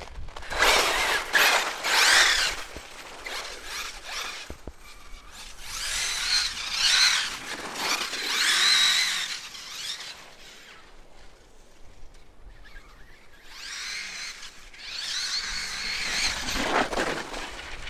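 Arrma Kraton EXB RC monster truck's electric motor and drivetrain running on 6S, whining in repeated bursts as the throttle is blipped, the pitch rising and falling with speed. There are about four bursts, with quieter spells between them.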